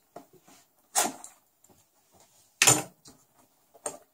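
A small cardboard box being cut open with a knife and handled: two short, sharp cardboard sounds, about a second in and near three seconds, with faint light clicks and rustles between them.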